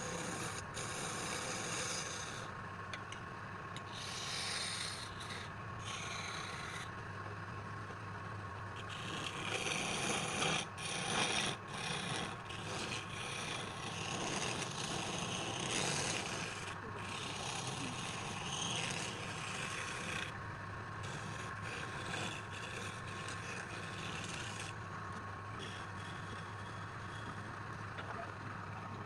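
Wood lathe running with a steady hum while a tool scrapes against the spinning wood in repeated passes that start and stop every second or few seconds.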